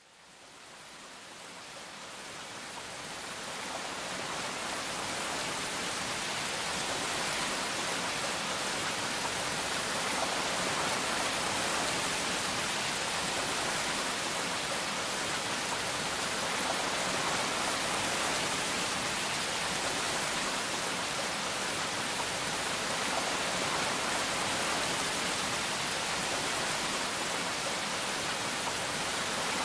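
Steady hiss of falling rain, fading in from silence over the first several seconds and then holding even.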